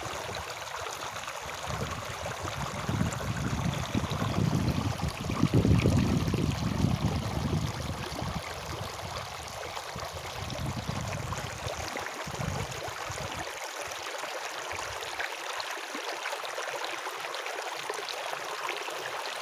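Running water, a steady flow like a stream. Heavy low rumbling rides on it through the first half, loudest about six seconds in, and stops about thirteen seconds in.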